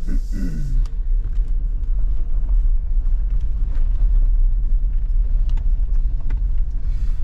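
Electric car driving on the road, heard from inside the cabin: a steady low rumble of tyre and road noise.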